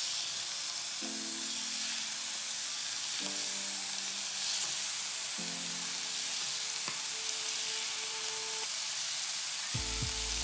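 Marinated chicken strips frying in oil in a hot pan, sizzling steadily.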